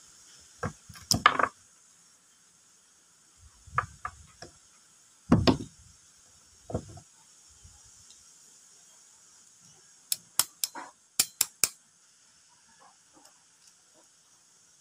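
Metal parts of a stripped-down Makita 9527NB angle grinder and a pair of pliers handled on a wooden bench: scattered knocks and clatter, the loudest about five seconds in, then a quick run of sharp metallic clicks a little after ten seconds.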